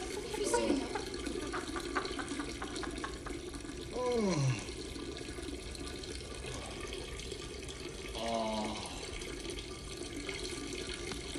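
A man urinating in a long, unbroken stream into a toilet, sounding like a running tap. Partway through he lets out a falling groan of relief about four seconds in, and makes a second short vocal sound near the end.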